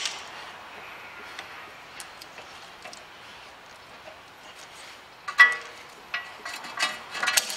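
Metallic clicks and clinks of pliers and a handbrake cable against a rear brake caliper. They are faint and scattered at first, with a sharp cluster of ringing clinks about five seconds in and more clinks near the end.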